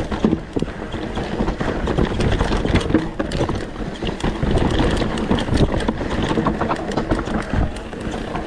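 YT Decoy mountain bike rattling down a rocky trail: tyres rolling and crunching over rocks and roots, with many quick knocks and clatters from the chain and frame.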